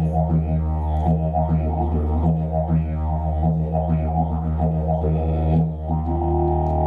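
Didgeridoo played live: a continuous low drone with rhythmic shifts in tone colour. Near the end the rhythm gives way to a steadier held drone with a higher note over it.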